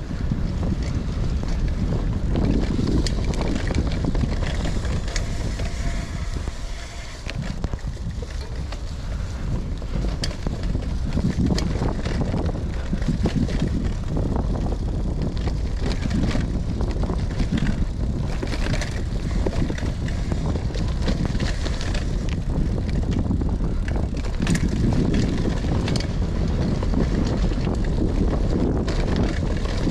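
Cannondale CAADX cyclocross bike ridden fast along dirt singletrack: steady wind rush on the microphone over the tyre noise, with frequent sharp clicks and rattles from the bike over bumps.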